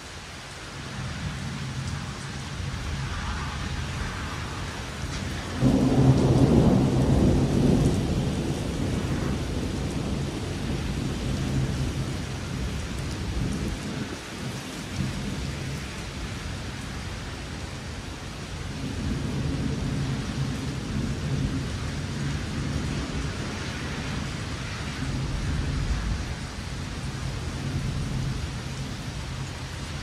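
Thunderstorm: steady rain falling with rolling thunder. A loud thunderclap starts suddenly about five and a half seconds in and rumbles on for a few seconds, with softer rumbles returning later.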